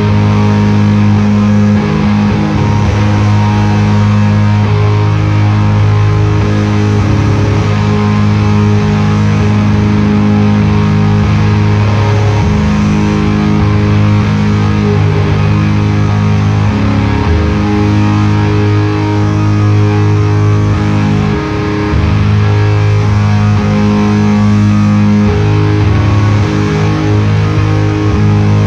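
Live instrumental music from an electric guitar and an organ playing slow, sustained chords that change every few seconds.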